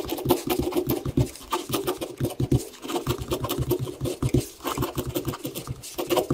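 A pen scratching across paper in quick, irregular strokes as words are handwritten.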